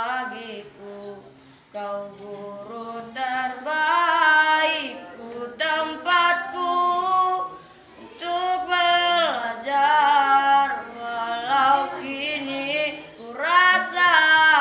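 A boy singing unaccompanied: slow, held melodic phrases with short pauses for breath between them.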